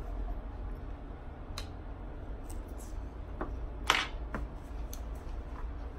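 Eating at a table: chewing of crisp romaine salad with scattered small clicks of forks and containers, and one louder sharp click about four seconds in, over a low steady hum.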